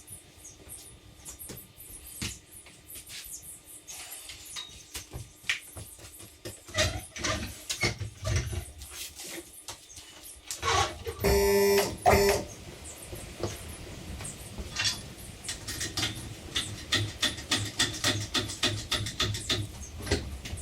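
Workshop tool and metal noises: scattered clicks and clanks, a loud, pitched, pulsing mechanical burst lasting about a second a little past halfway, and a rapid run of clicks, about five a second, near the end.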